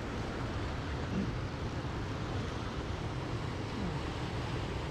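Steady rushing noise of wind buffeting the microphone over running river water, with a heavy low rumble and no distinct events.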